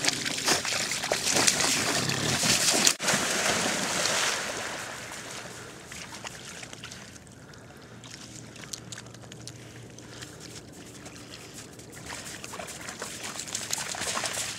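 Dogs splashing as they run into shallow water, loudest over the first four seconds or so, then fainter sloshing and lapping as they swim out.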